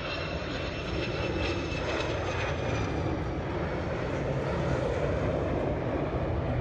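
Boeing 727-2S2F freighter's three tail-mounted Pratt & Whitney JT8D turbofans during a low flypast: a jet rumble that grows louder, with a faint high whine falling slightly in pitch over the first few seconds.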